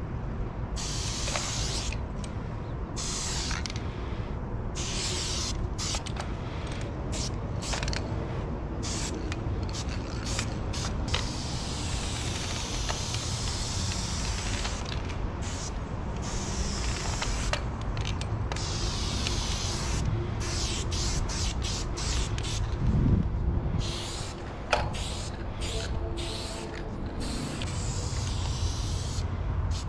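Aerosol spray paint can hissing in repeated bursts as the nozzle is pressed and released, some bursts short and some several seconds long, over a low steady rumble.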